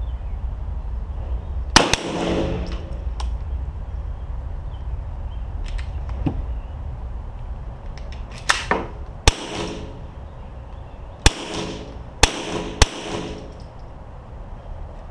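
Single gunshots fired one at a time, each a sharp crack followed by a short echoing ring: one about two seconds in, two close together around eight to nine seconds, then three more in quick succession between eleven and thirteen seconds. A steady low rumble sits under them throughout.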